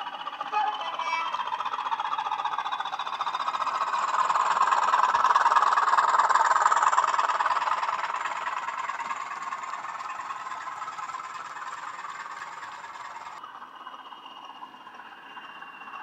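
Hornby HM7000 sound decoder playing a Class 20 diesel engine sound through a model locomotive's small speaker, mixed with the running noise of the model train on the track. It gets louder as the train passes close, loudest about five to seven seconds in, then fades as it moves away.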